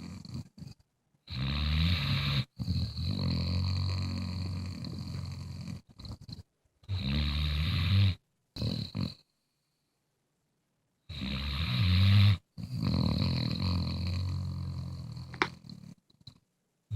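Bluetick Coonhound snoring: a series of long, low snores, each lasting one to three seconds, with a pause of about two seconds near the middle.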